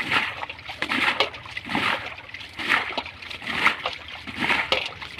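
Irregular splashing and sloshing in shallow muddy water, a splash roughly every second, as children wade and grab fish by hand in a drained canal.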